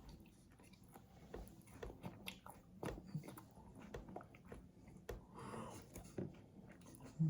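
Faint scattered mouth clicks and soft smacks, like chewing or lip smacking, with a brief low thump at the very end.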